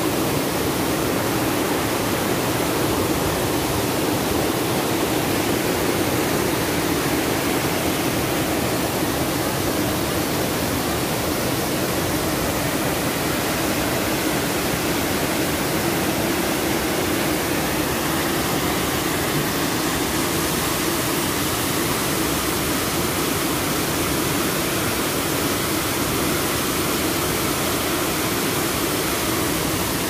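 Waterfall pouring onto rocks: a steady rushing hiss that does not change or break.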